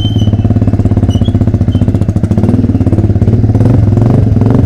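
Motorcycle engine running steadily through an open exhaust with no muffler, a loud low pulsing exhaust note.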